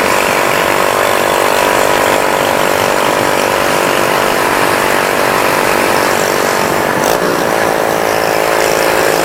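Motorcycle engine running at a steady cruising pace, with wind noise rushing over the rider's helmet microphone.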